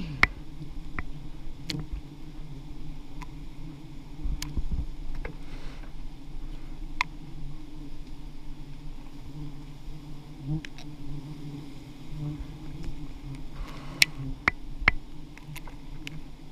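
A swarm of giant honeybees (Apis dorsata) buzzing in a steady hum around their exposed comb, with scattered sharp clicks.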